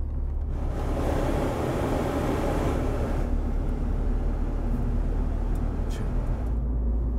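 Road and drivetrain rumble heard inside the cabin of a Smart Fortwo while driving, with a rush of noise swelling and fading from about half a second to three seconds in.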